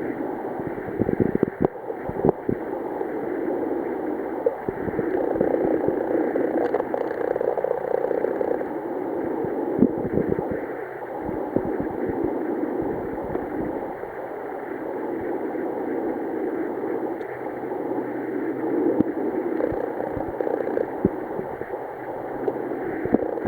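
Steady rushing water noise that swells and fades every few seconds, with scattered knocks and clicks.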